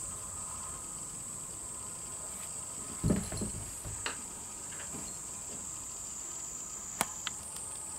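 Insects chirring steadily at a high pitch. About three seconds in there is a thump followed by rustling, which is the loudest sound, and near the end there are two sharp clicks.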